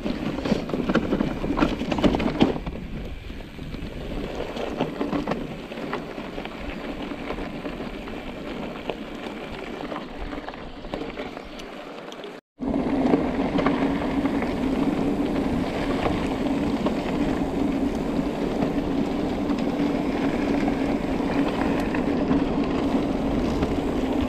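Mountain bike being ridden: an even rumble of tyres on the track with wind on the microphone and scattered small knocks. An abrupt cut comes about halfway through, after which the noise is louder and a steady low hum runs under it.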